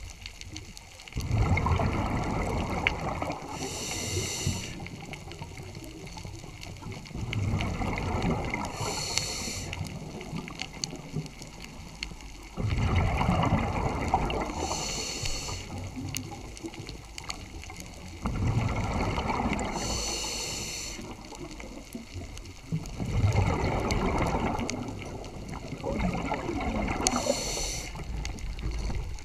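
Scuba diver breathing through a regulator, heard underwater. Each breath cycle is a gurgling rush of exhaled bubbles followed by a short hissing inhale, repeating about every five to six seconds, five times.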